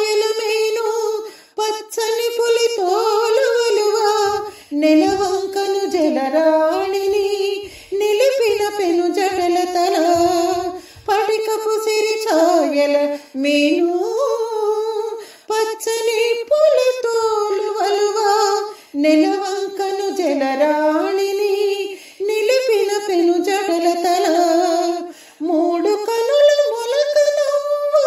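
A woman singing a Telugu devotional song to Shiva, in phrases of a few seconds with long held notes and sliding melodic ornaments and short breaths between them.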